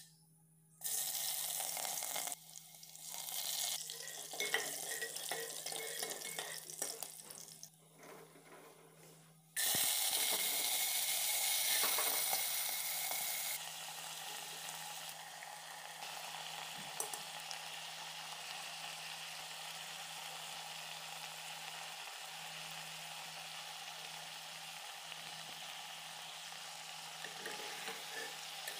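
Hot oil sizzling in a pot as cumin seeds and then chickpeas fry. The sound breaks off and changes abruptly several times in the first ten seconds, then settles into a steady frying hiss.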